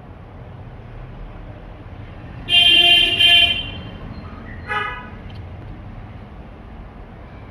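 A horn honking: two loud, close blasts about two and a half seconds in, then a shorter, fainter toot a second later, over a steady low background hum.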